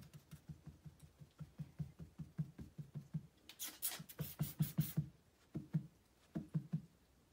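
Fingers patting a towel-covered surface in quick, even dull taps, about four or five a second, with a burst of scratching on the towel a little past the middle and a few short pauses near the end.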